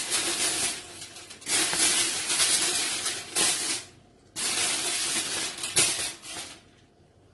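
Aluminium foil crinkling and rustling as it is pressed over a pot of pilau to seal it for dum cooking, in three long stretches that stop about four seconds in and start again sharply.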